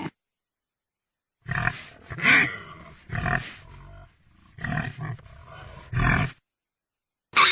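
Pig grunting: about five rough grunts, spaced out after a short silence.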